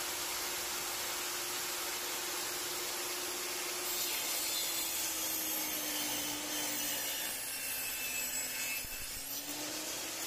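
Table saw running, then cutting through wood from about four seconds in: the blade's motor tone sags under the load of the cut and climbs back as the cut finishes.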